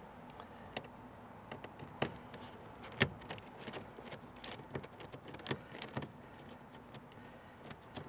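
Scattered light clicks and small metallic clinks as a Phillips screwdriver is worked by hand in the screws of a steel door-handle reinforcement bracket, with the sharpest click about three seconds in.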